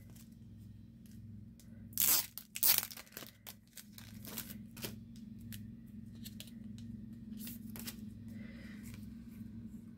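Packaging torn open by hand: two short rips about two seconds in, followed by lighter crinkling and handling clicks.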